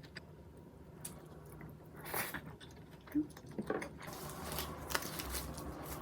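Faint eating and food-handling sounds: scattered small clicks and squishes, a short rustle about two seconds in, and a brief squeak about three seconds in.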